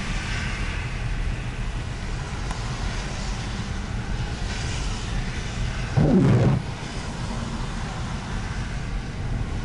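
Steady low rumble of a car driving on a snowy highway, heard inside the cabin. A brief, loud sound breaks in about six seconds in.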